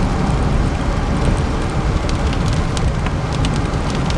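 Rain and wind on a storm-chase vehicle heard from inside: a steady low rumble of wind and road noise with many scattered sharp raindrop ticks.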